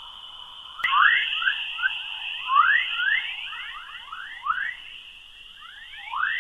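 Space plasma-wave radio recording turned into sound: a steady high hiss with many quick rising chirps, several a second, louder from about a second in, like birds twittering.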